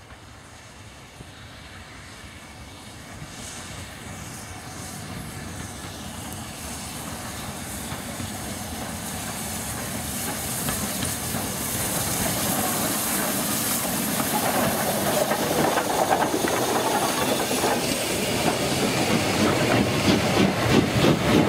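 Steam locomotive hauling a passenger train approaches and passes close by, its steam hiss and running noise growing steadily louder throughout, with the coach wheels clattering over the rail as they go past near the end.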